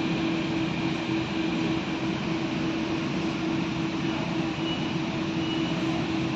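Interior noise of a Delhi Metro train carriage: a steady rumble with a constant low hum running under it.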